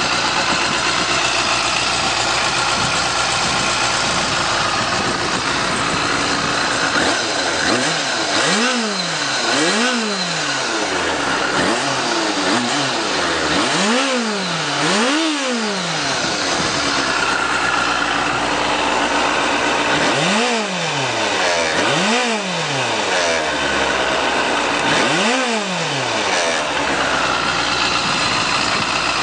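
2008 Yamaha FZ6's fuel-injected 600cc inline-four idling through its under-tail exhaust just after a button start. From about seven seconds in it is blipped seven times, mostly in pairs, each rev rising and falling quickly before dropping back to idle. It picks up cleanly on the throttle and settles back to idle near the end.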